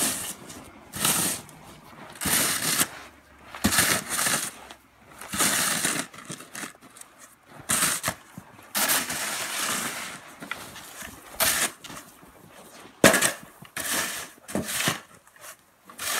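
Snow shovel with a plastic blade scraping and pushing snow in repeated strokes about every second or two, with a sharp knock late on.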